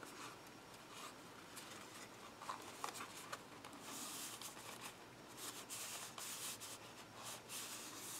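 Faint rubbing and rustling of cardstock being pressed down and smoothed by hand as it is glued in place, with a few light ticks; the rubbing grows a little stronger about halfway through.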